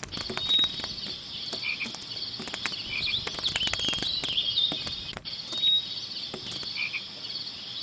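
A chorus of crickets and frogs: a steady high trilling with repeated chirps and croaks. It runs over a busy stream of sharp clicks and crackles.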